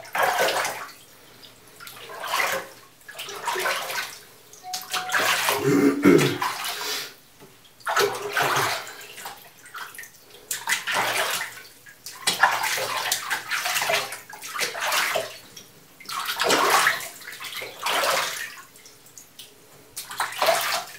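Bathwater sloshing and splashing as a hand scoops and swishes it over a cat held in the tub, in repeated swells about every second or two.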